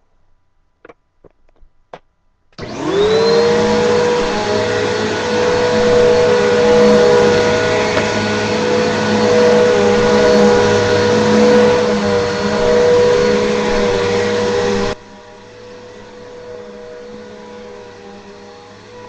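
A few light clicks, then a Bissell Powerforce upright vacuum cleaner is switched on: its motor spins up with a rising whine and runs loud and steady as it picks up paper shreds. About twelve seconds after starting the sound drops abruptly to a much lower level but keeps running with the same steady whine.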